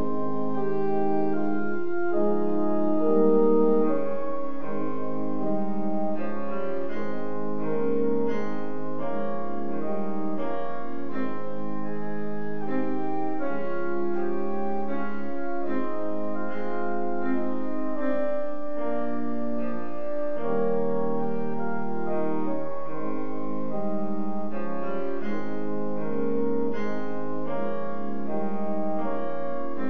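Instrumental piano music, with chords and melody notes held a second or two each at a steady level.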